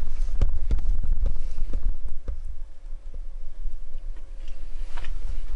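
Utensils clicking and tapping against a plate as the fish is picked up for a first taste: about seven light, sharp taps spread over a few seconds, over a low rumble that is loudest in the first two seconds.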